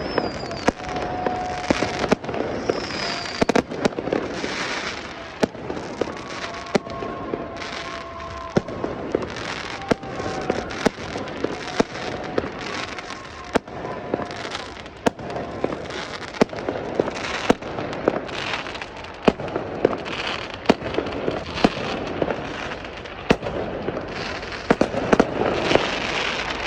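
New Year's fireworks going off: dozens of sharp bangs at irregular intervals over continuous crackling, with a few short whistling tones among them.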